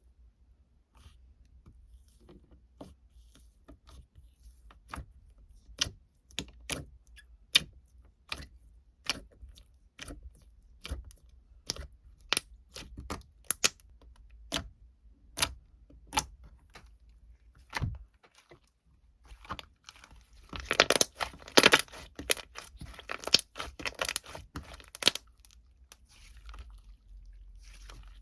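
Close-up handling sounds: a string of sharp, separate clicks and taps, then a few seconds of dense crackling about twenty seconds in.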